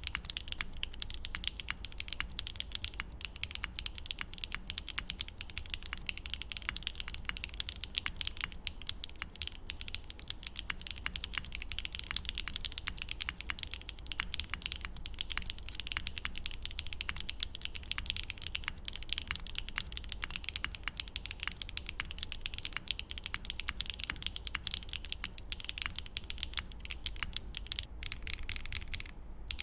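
Fast, continuous typing on a QK65v2 mechanical keyboard with HMX Yamatake tactile switches, polycarbonate DMK Yeti keycaps, an aluminium plate and no foam. The keystrokes are a dense stream of clicks that pauses briefly near the end.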